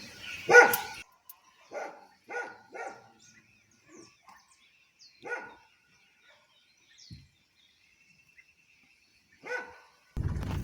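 Dog barking: two loud barks in the first second, then fainter single barks every second or few seconds. Birds chirp faintly between them, and a steady rushing noise starts near the end.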